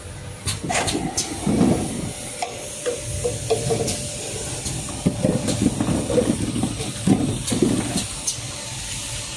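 Bottle-washing production line running: a steady hiss of compressed air with irregular clacks and knocks from the jars and machinery.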